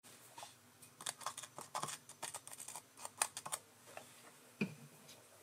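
Faint, irregular light clicks and ticks of metal from the tap and tap wrench being handled at the lathe.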